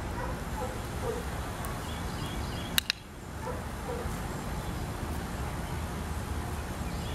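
Backyard ambience: a steady low hum with scattered faint bird chirps, broken about three seconds in by two sharp clicks in quick succession.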